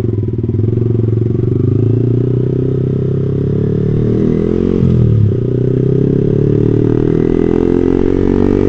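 Yamaha R15 V3's single-cylinder engine running through an R9 GP SS aftermarket exhaust with a bassy note, the motorcycle cruising at steady, moderate throttle. The engine pitch dips and comes back up about halfway through.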